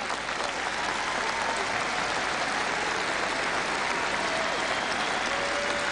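Large audience applauding steadily, a dense, sustained wave of clapping.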